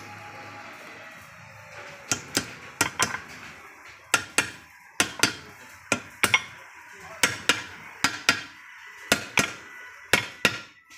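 Hammer knocks driving a new ball bearing into place on the shaft of a Maruti Suzuki Eeco manual gearbox: sharp metallic strikes, often in quick pairs, starting about two seconds in and going on almost to the end.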